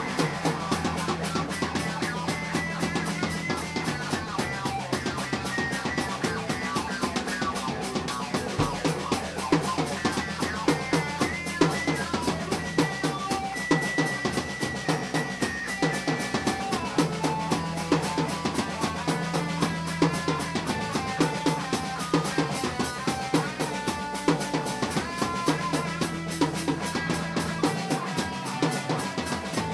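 Instrumental music track driven by a fast, steady drum-kit beat with bass drum and snare, over a held bass line and short melodic notes.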